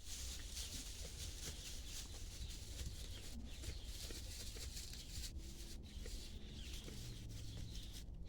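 Quiet outdoor farm ambience: a steady hiss with a low rumble, and a faint low hum coming in about halfway through.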